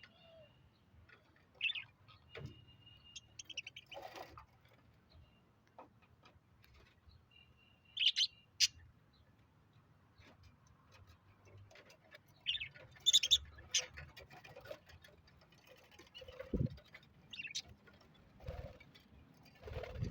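Budgerigars giving short, scattered chirps and squeaks, with a few low thumps near the end.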